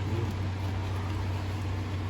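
A steady low hum under an even hiss, with a few faint ticks.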